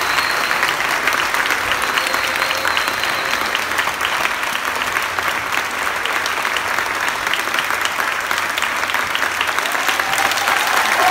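Audience applauding steadily after a band piece ends, a dense even clapping.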